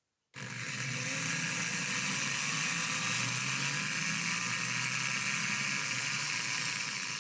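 Electric drill starting suddenly and running steadily, boring a pilot hole for a hinge screw into the cabinet's plywood.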